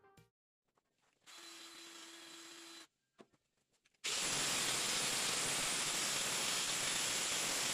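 Handheld angle grinder grinding on the steel frame of a riding mower. After a few seconds of near silence it starts abruptly about four seconds in and runs as a loud, steady grind.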